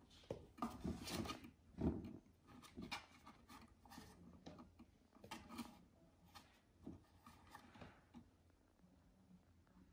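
Faint, irregular taps, scratches and rustles of a cat pawing at rabbits inside a wooden dollhouse shelf, with a soft thump about two seconds in. The sounds thin out in the second half.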